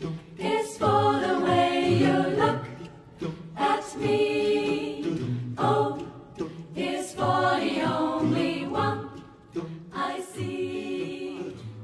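Music: a group of voices singing, choir-like and close to a cappella, in phrases with short breaths between them.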